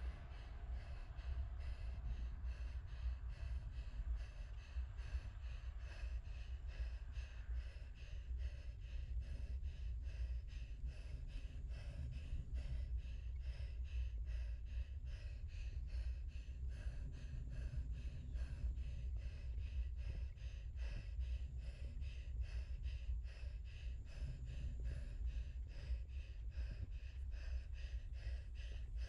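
Wind rumbling on the camera microphone of a moving bicycle, with a steady quick rhythm of short breathy hisses, about two a second.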